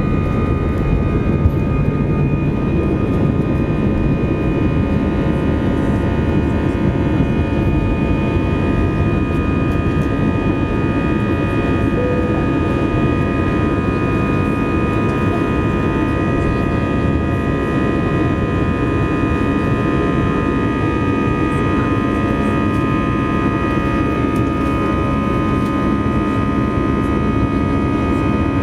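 Airbus A320's jet engines at takeoff thrust, heard from inside the cabin: a loud, steady rumble with a high fan whine of several steady tones, through the takeoff and the initial climb.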